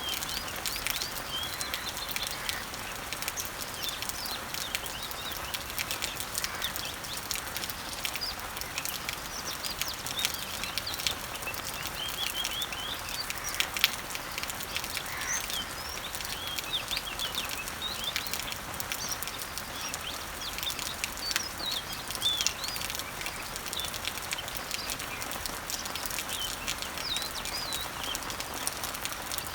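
Steady rain pattering on leaves, with scattered drops ticking and one louder drop about halfway through, while small birds chirp and twitter in short calls throughout.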